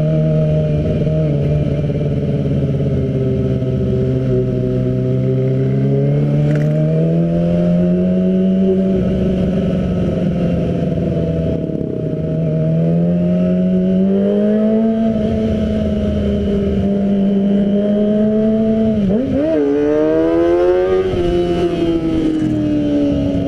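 Kawasaki ZX-25R's 250 cc inline-four engine through an Arrow exhaust, heard on board while riding at moderate revs, its pitch slowly rising and falling. Near the end there is a quick dip and rebound in pitch.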